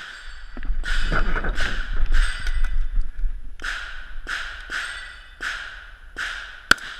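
Short-barreled AR-15, a PWS MK111 with an 11-inch barrel, firing a string of shots, roughly one every half second to a second, each with a short ringing tail. Heard through a head-mounted camera's microphone.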